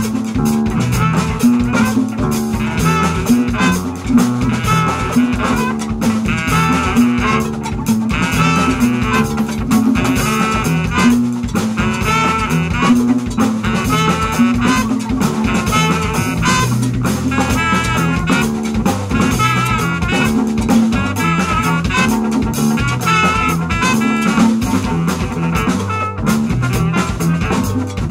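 Live jazz band playing: trumpet and baritone saxophone lines over upright bass, electric guitar, drum kit and congas, with a steady bass line throughout.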